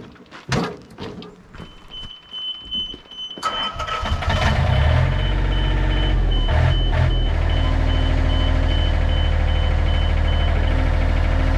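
A few knocks, then a rapid pulsing high warning beep from about two seconds in. About three and a half seconds in, the John Deere 30 (Yanmar-built) compact excavator's diesel engine cranks, starts and settles into a steady idle. The beep, the low-oil-pressure warning, cuts off near the end as oil pressure comes up.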